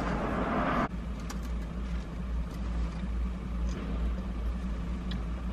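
Steady low rumble of a car's cabin, with a rush of noise that stops suddenly about a second in and a few faint ticks after.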